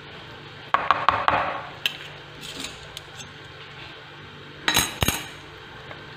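Metal forks clinking and scraping against a bowl and a frying pan while handling frying pastries: a quick run of clicks about a second in and a louder cluster near the end, over the steady sizzle of hot frying oil.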